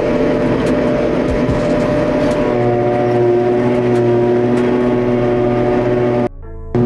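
Self-propelled forage harvester running steadily while harvesting grass for silage, heard inside the cab: a loud engine and driveline hum with several steady held tones. About two and a half seconds in, the tones shift to a new steady set; near the end the sound drops out briefly.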